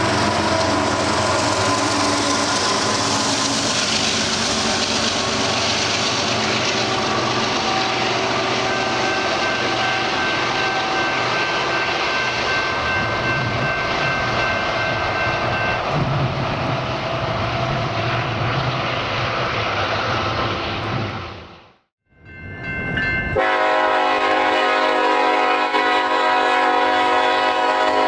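Freight train rolling past close by: a steady rumble of wheels on rail, with thin high steady squeals for several seconds in the middle. After a brief drop-out about three-quarters of the way through, a diesel locomotive horn sounds one long, steady chord as a freight train with several locomotives approaches.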